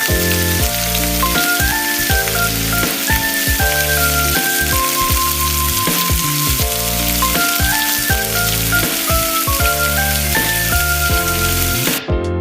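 Background music with a stepping melody over a steady sizzle of food frying in hot fat. The sizzle cuts off suddenly near the end.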